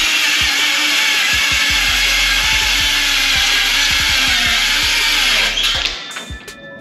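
DeWALT DCS565 cordless circular saw on a PowerStack pouch-cell battery, running under load as it cuts through OSB. The cutting noise stops about five and a half seconds in.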